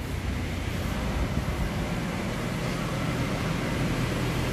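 Steady rushing background noise with a low rumble and no distinct events.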